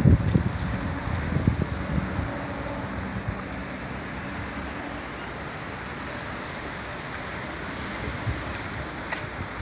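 Strong wind blowing, with low rumbling gusts on the microphone that ease about two seconds in, then settle into a steady rush.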